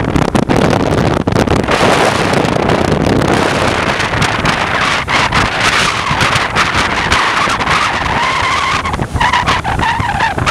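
Wind rushing and buffeting the microphone on a moving motorcycle, over the bike's engine and road noise. A thin, wavering whine rises over it in the last few seconds.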